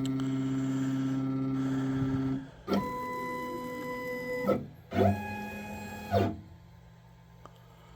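Stepper motors of a Shapeoko 5 Pro CNC router driving the gantry: a steady motor whine that stops about two and a half seconds in, then two shorter moves, each sweeping up in pitch as it starts and down as it stops, ending about six seconds in.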